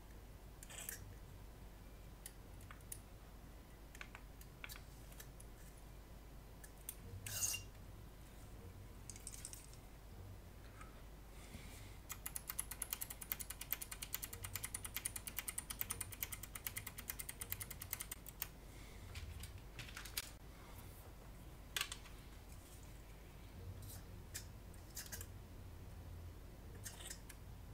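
Faint clicking and short hisses from a can of Kontakt 60 contact cleaner being handled and sprayed onto switches and sockets. From about twelve seconds in, for some six seconds, comes a fast rattle of clicks as the can is shaken, its mixing ball rattling inside.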